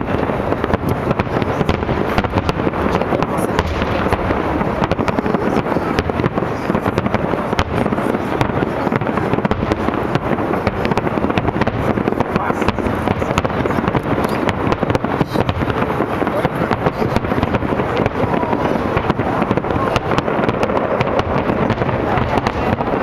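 Fireworks display in a dense, continuous barrage: rapid, overlapping bangs and crackles with no pause.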